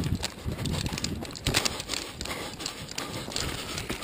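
Running footsteps on a woodland floor of dirt and leaf litter, a quick run of thuds a few strides a second.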